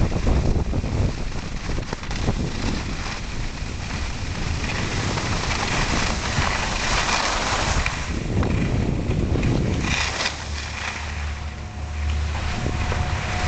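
Wind buffeting the microphone while skiing fast down a groomed run, with skis hissing and scraping over packed snow. The rush eases about ten seconds in as the skier slows, and a low steady hum comes in near the end.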